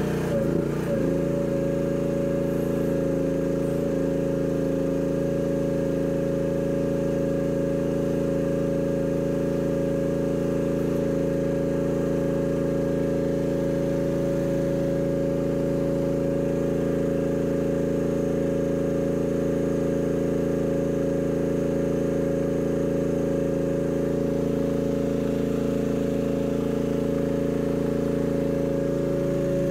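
Chinese mini excavator's engine and hydraulics running at a steady speed, an even drone that holds the same pitch throughout.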